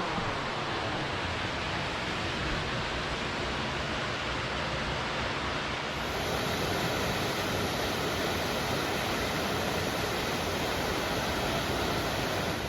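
Steady rushing of a waterfall. It grows a little louder and brighter about six seconds in.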